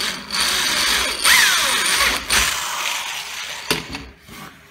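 Corded Black+Decker electric drill running and boring through MDF for about three and a half seconds, with a falling whine partway through. A sharp knock near the end as it stops.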